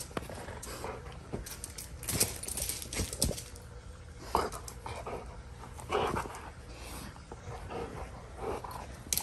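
A dog tugging on a braided rope toy, making short irregular vocal noises and panting as it pulls.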